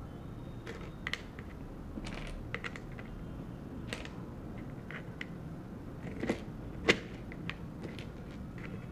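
Small wooden rangoli tiles being picked up and set down in a wooden frame: scattered light clicks and taps at an uneven pace. The loudest is a sharp knock just before seven seconds in.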